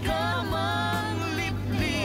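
Background music: a song with a singing voice.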